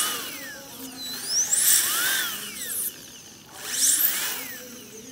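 Dental handpiece whining in three short bursts, its high pitch sweeping up and falling back each time, as it strips enamel from between the lower front teeth in interproximal reduction.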